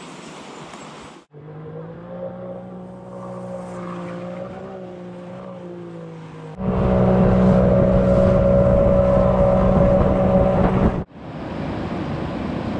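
Boat outboard motor running steadily, getting much louder from about halfway through, then cutting off abruptly near the end. Rushing river water and wind are heard before and after the engine.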